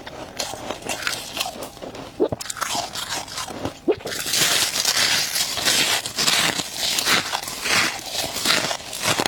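Close crunching of frost and ice: scattered sharp crunches at first, then from about halfway a dense, continuous crisp crunching that pulses roughly twice a second.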